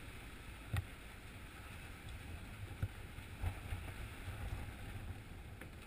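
Steady low rumble of a sportfishing boat's engine under way, with wind and water noise, and a single knock under a second in.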